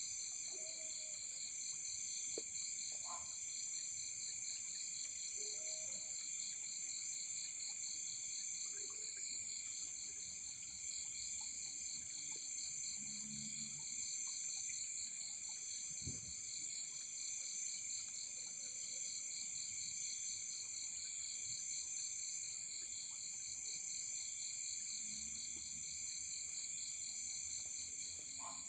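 Steady, high-pitched chorus of forest insects such as crickets and cicadas, several overlapping pitches, one of them a fast, even pulsing trill, with a few faint soft knocks underneath.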